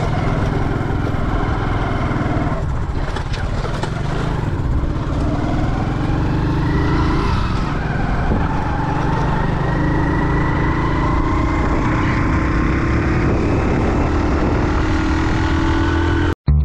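Motorcycle engine running under way, a steady low rumble whose pitch slowly rises and falls with the throttle. It cuts off abruptly just before the end.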